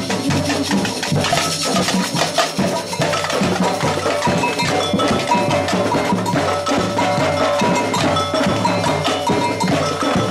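Samba batucada percussion band playing a fast, dense rhythm: deep bass drums pulsing under sharper drums and ringing, bell-like strikes.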